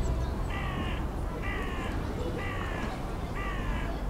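A bird calling four times, evenly spaced about a second apart, each call about half a second long and falling slightly in pitch, over a steady low rumble.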